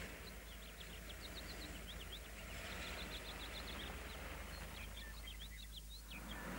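Small birds chirping faintly: many quick, high chirps in clusters over a soft, steady hiss.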